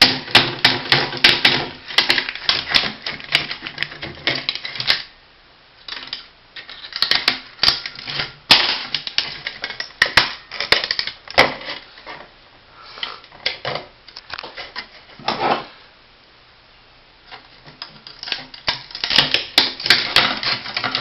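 Rapid clattering and crinkling of a smashed floppy disk drive's bent sheet-metal casing and loose parts as it is handled. The noise comes in bursts of dense clicks, with a few short pauses.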